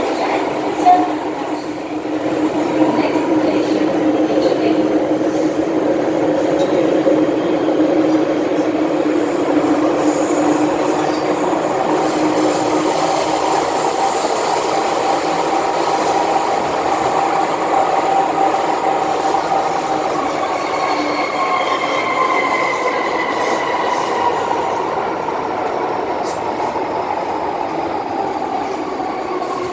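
MTR M-Train electric multiple unit heard from inside the car: a steady rumble with a humming whine from its electric traction equipment, and several tones that climb and shift in pitch from about halfway through. A short sharp knock comes about a second in.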